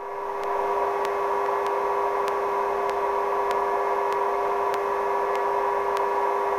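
Sikorsky helicopter holding a hover under load, a steady engine and transmission whine with a faint even ticking about three times a second.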